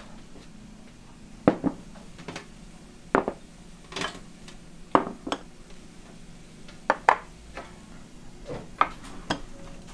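Small side-dish bowls being set down one after another on a wooden table and lifted from a stainless steel tray: a series of sharp clinks and knocks, about a dozen in all, some in quick pairs.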